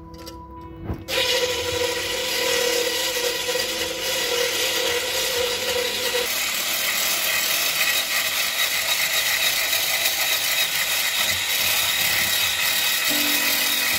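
Electric hand blender with a wire whisk attachment switches on about a second in and runs steadily, whisking egg whites in a tall plastic beaker toward soft peaks.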